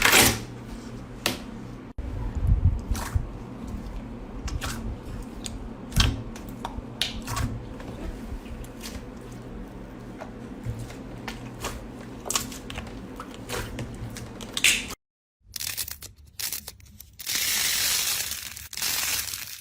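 Slime being squeezed and worked by hand, giving scattered sharp clicks, pops and crackles. After a brief break there is about two seconds of steady crackling hiss near the end.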